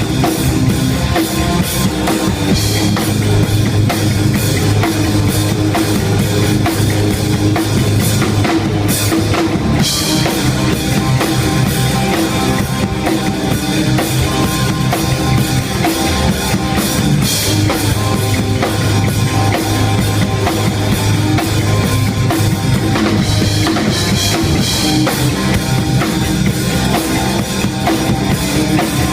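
A hardcore band playing at full volume, the drum kit close and loud over distorted guitar and bass, with dense kick-drum and cymbal hits.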